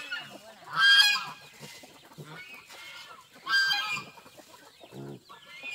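Chickens clucking and squawking, with two loud short calls about a second in and about three and a half seconds in, and a short low grunt near the end.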